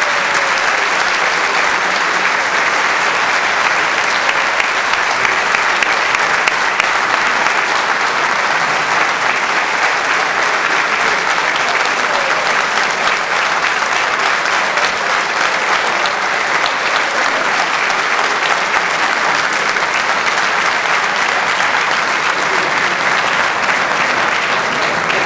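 A large audience applauding, a dense, steady clapping that keeps up without a break.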